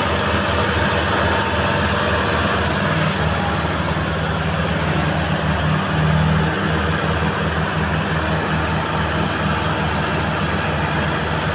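Sonalika tractor's diesel engine running steadily under load as it tows a trailer piled with rice straw through deep mud, a continuous low drone with a pulsing beat.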